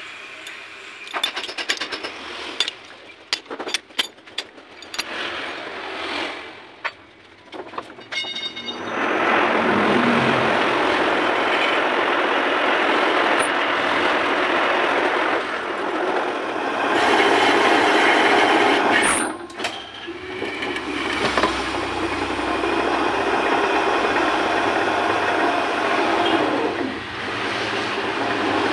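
Metal lathe: for the first several seconds, scattered clanks and taps of a tool being fitted and clamped in the tool post. From about eight seconds in, the lathe runs with a boring tool cutting inside the bore of a spinning metal ring held in a four-jaw chuck, a steady harsh machining noise with a brief break about twenty seconds in.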